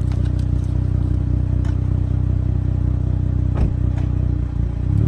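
Dodge Charger SXT's V6 running through Flowmaster Super 10 mufflers, idling steadily, with a few brief clicks.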